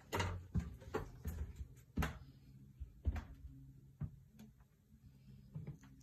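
A wooden room door being pushed open, then a string of irregular knocks and footfalls on a hardwood floor, loudest at the start and about two seconds in, thinning out near the end.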